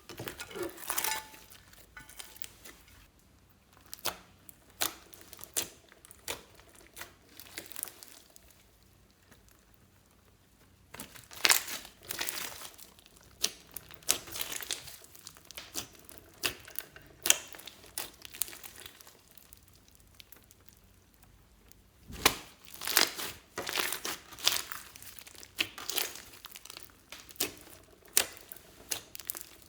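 Slime being squished and pulled by hand, making irregular sticky pops and crackles that come in flurries with quieter gaps between.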